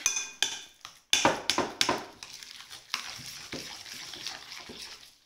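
Ricotta ravioli filling (ricotta, parsley, egg and parmesan) being mixed by hand in a ceramic bowl: irregular wet squelching and scraping strokes. The strokes are loudest about a second in, then settle into a softer, steadier working.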